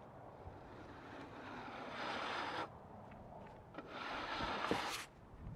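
Scraping and rubbing across the freshly sawn flat top of a figured maple log as sawdust is cleared off it, with two longer strokes, one about two seconds in and one near the end, and a few light knocks.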